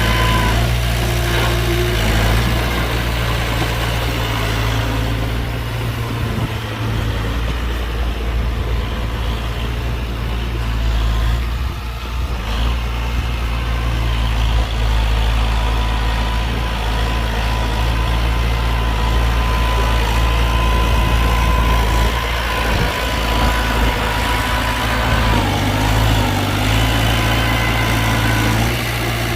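Heavy construction-machine engine running steadily at low revs: a deep, even rumble with a thin steady whine over it.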